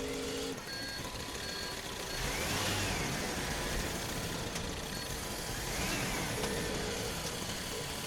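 Radio-controlled toy construction machines working: a motor whine rises and falls twice over a steady grinding noise, with short beeps near the start and near the end.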